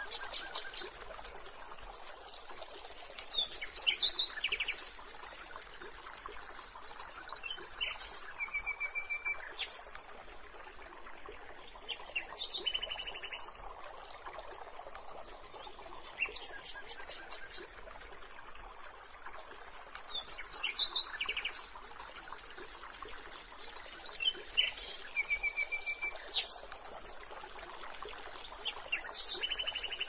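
Songbirds chirping in short trilled phrases that recur about every four seconds, over a steady rush of a flowing stream.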